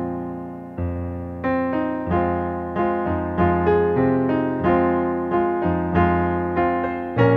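Solo piano music at a slow, even pace: a new note or chord is struck about every two-thirds of a second, each fading away over held low notes.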